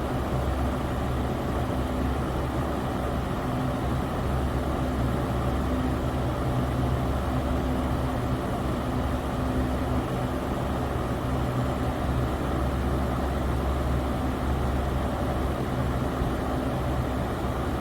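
Electric fan running steadily: an even whoosh of moving air over a low motor hum that holds the same pitch throughout.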